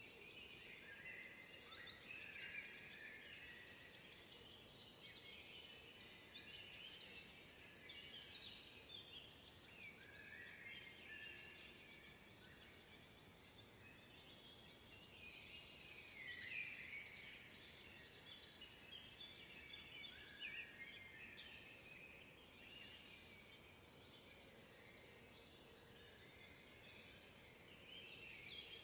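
Faint chorus of songbirds. Quick chirping and warbling phrases come in bouts, over a thin high note repeated every second or two.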